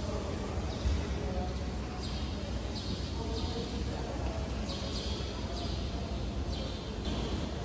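Steady background murmur and low rumble of an outdoor crowd, with a run of short, high, repeated chirps about every half second from about two seconds in.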